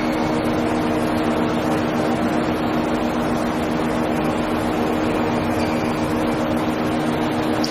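A steady mechanical drone holding one low pitch under a constant hiss.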